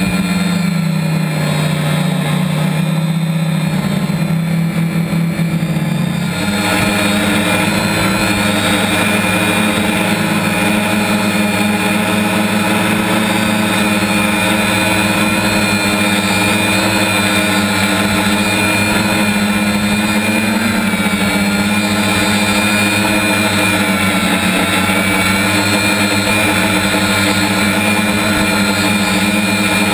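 F450 quadcopter's electric motors and propellers whirring steadily, heard from its onboard camera; the motor note steps up about six seconds in.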